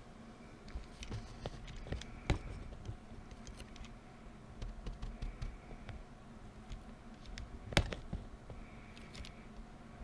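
Computer keyboard being typed on: irregular key clicks, with two louder knocks about two seconds in and near the eight-second mark.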